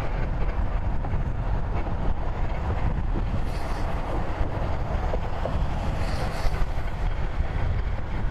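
Ford Super Duty pickup towing a loaded flatbed trailer rolls slowly past, its engine and tyres making a steady rumble, with wind buffeting the microphone. Two short hissing sounds come about midway and later.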